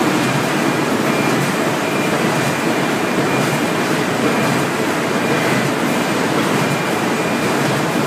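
Corrugated-board printing machine running in production, a steady loud mechanical noise of rollers and sheets feeding through, with a faint high tone that comes and goes.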